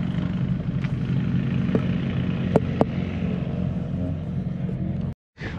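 Car engine and exhaust drone heard from inside a slowly rolling car: a steady low rumble, with two sharp clicks about two and a half seconds in. It cuts off abruptly near the end.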